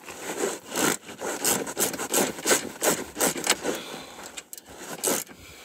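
A run of uneven scraping and rubbing strokes, roughly two a second, fading near the end.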